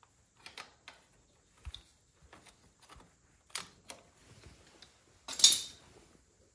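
Scattered clicks and scrapes of a metal oil filter wrench being fitted and worked on a tractor's spin-on oil filter, with a louder half-second scrape about five seconds in.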